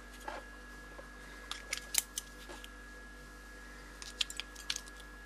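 Small plastic clicks and rattles of AAA nickel-metal-hydride cells being pushed into a three-cell flashlight battery holder. The clicks come in two short clusters, about two seconds in and about four seconds in.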